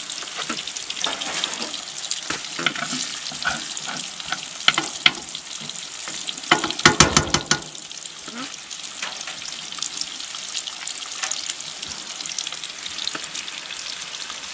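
Eggs and sausage slices sizzling steadily in a frying pan on a wood stove, with a metal spoon scraping and tapping the pan. About seven seconds in there is a short, louder rattle of metal on metal.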